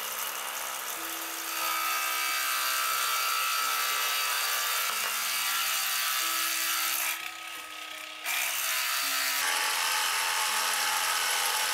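Forstner bit boring into hardwood on a benchtop drill press with a brushless motor: a steady cutting hiss of the bit shaving wood. It drops off briefly about seven seconds in, then resumes.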